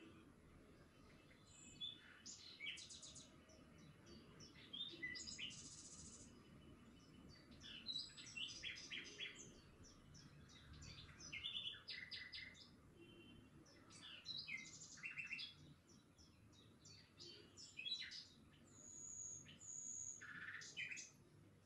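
Small birds chirping, many quick short calls and trills one after another, over a faint low background noise.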